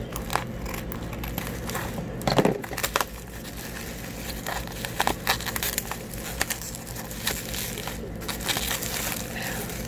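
Package wrapping being handled and pulled open by hand: irregular crinkling and crackling, with a louder crackle about two and a half seconds in.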